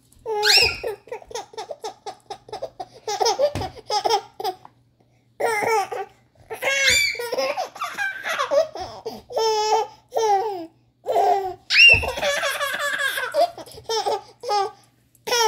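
A baby laughing in repeated bouts of quick, breathy pulses, with high squeals in between and short pauses between bouts.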